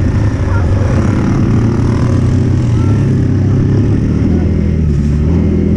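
Single-cylinder dirt bike engine running at a steady cruising speed, with wind and tyre noise from riding a sandy track.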